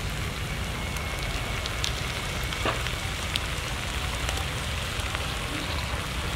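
Stuffed snails cooking on a wire grill rack: steady sizzling with scattered crackles and pops.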